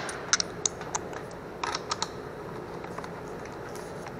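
Irregular light metallic clicks and clinks of hand tools: a socket and ratchet being handled while a bolt is threaded in by hand. The clicks come in a few quick runs, with a faint steady hum underneath.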